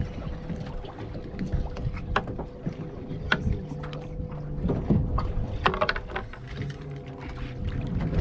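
Low rumbling noise aboard a fishing boat, with wind on the microphone and a faint steady hum, broken by scattered short clicks and knocks.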